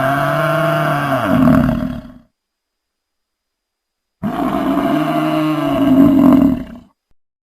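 Dinosaur roar sound effect: a long pitched roar that swells near its end, played twice, the second beginning about four seconds in, with dead silence between.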